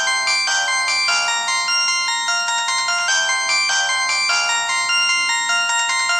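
Samsung SGH-X200 phone playing a polyphonic ringtone through its loudspeaker: a fast, repeating tune of bright synthesized notes, several sounding at once.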